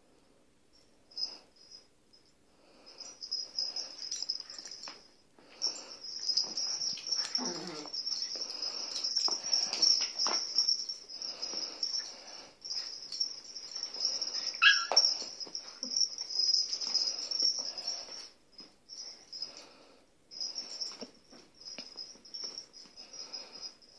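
An adult dog and young puppies at rough play: high-pitched squeaking and yipping in bursts, with scuffling on the floor and one sharper yelp about fifteen seconds in.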